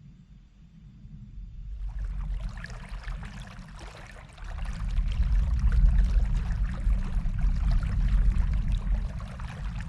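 Flowing stream water trickling and splashing, fading in about two seconds in, over a deep low rumble that grows louder about four and a half seconds in.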